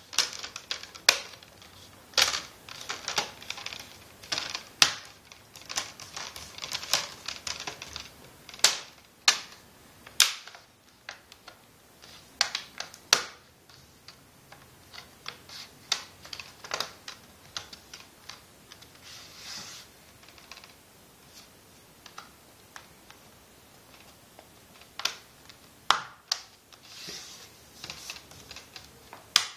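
Plastic screen bezel of a Dell Latitude E6520 laptop being pressed onto the display lid, its clips snapping into place. Irregular sharp clicks and snaps, thinning out for a few seconds in the second half.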